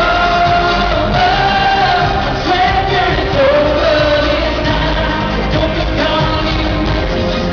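Live pop song: a male lead vocalist singing long, sliding notes over band accompaniment, recorded in an arena.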